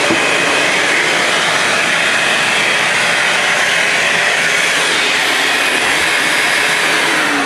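Vacuum cleaner running, a loud, steady, unbroken machine noise.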